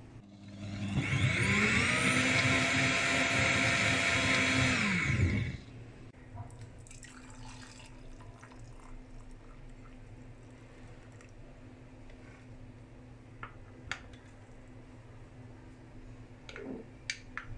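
Xiaomi high-speed blender motor spinning up with a rising whine, running at full speed for about four seconds, then winding down and stopping. Afterwards the blended drink is poured, and a spoon clinks a few times against a ceramic mug near the end.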